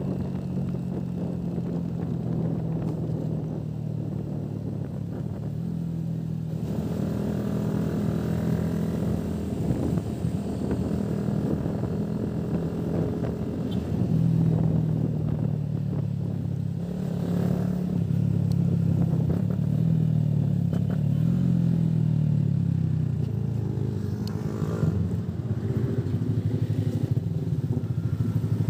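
Motor scooter engine running at road speed while riding, getting a little louder about halfway through.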